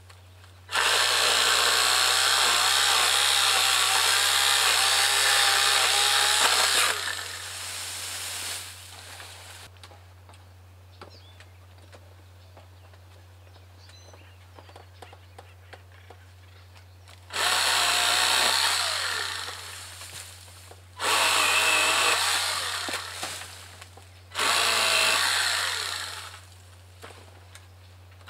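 Greenworks 40V cordless electric pole saw running and cutting through queen palm fronds. One long run of about seven seconds near the start, then after a quiet stretch three shorter bursts of two to three seconds each, its pitch wavering as it cuts.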